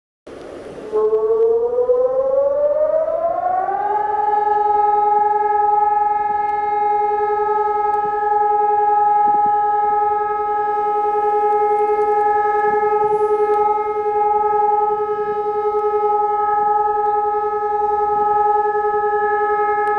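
A civil-defence warning siren sounding for a public emergency alert: after a short hiss, it winds up in pitch over about three seconds, then holds one steady, loud wail.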